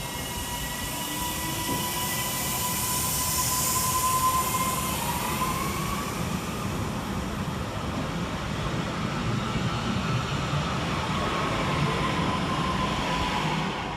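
Northern Class 331 electric multiple unit pulling away, with a steady rumble of wheels on rail. Its traction motors whine in several tones, one of which slides up in pitch about five seconds in as the train gathers speed.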